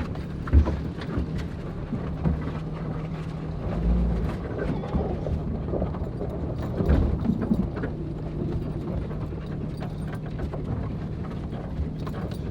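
Jeep's six-cylinder engine running steadily at low speed while the vehicle crawls over a rough trail, with knocks and thumps from the body and suspension over bumps, the loudest about half a second in.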